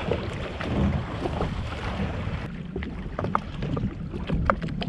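Wind rumbling on the microphone and choppy sea water lapping against a jet ski, with scattered short ticks and splashes, more of them in the second half.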